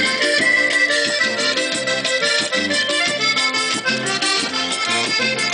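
Loud Latin American dance music led by an accordion, with a steady repeating bass beat.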